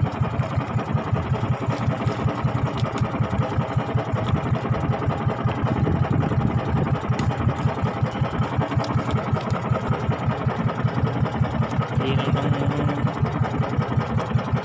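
Small fishing boat's engine running steadily, with an even, rapid chugging.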